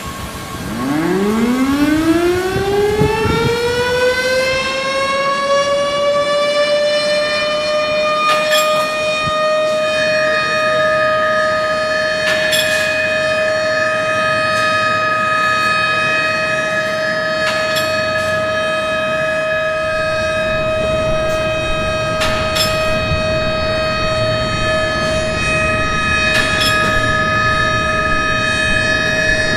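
Siren in an industrial noise piece, winding up from a low growl to a steady high wail that holds, rich in overtones. A second, higher steady tone joins about ten seconds in, and sharp clicks cut through every four to five seconds.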